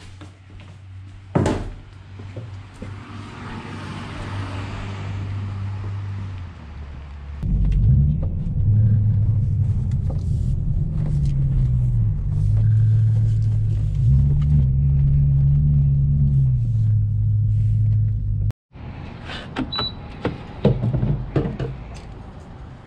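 Car engine running, heard from inside the cabin, with a door-like thunk early on. From about a third of the way in, the car drives off and the engine note rises and drops several times as it accelerates through the gears. After an abrupt cut near the end come a few clicks and knocks and a short beep.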